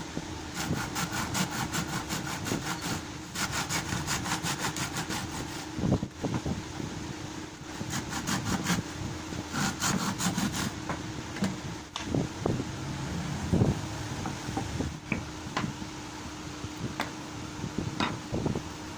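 Hacksaw blade sawing through the wooden shoulder of a cricket bat to cut out the broken handle, in quick back-and-forth strokes in four runs over the first eleven seconds. After that come scattered knocks and taps as the wood is worked loose, over a steady hum.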